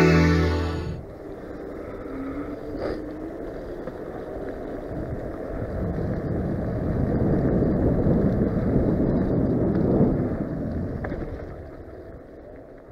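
Wind rushing over the microphone and tyre rumble on rough asphalt from a moving electric scooter. It swells to its loudest about ten seconds in, then fades out.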